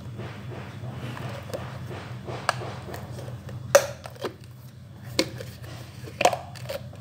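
Clear plastic parts of a Youha Gen 2 hands-free breast pump collection cup clicking and knocking as they are pulled apart: several short sharp clicks over a steady low hum, the loudest about halfway through.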